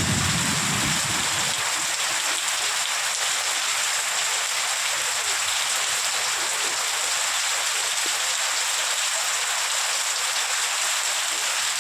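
Heavy, torrential rain falling in a steady downpour, an even hiss.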